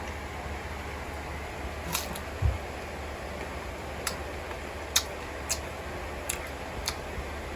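Irregular sharp clicks and smacks of someone eating, about six in a few seconds, with one low thump, over a steady low hum.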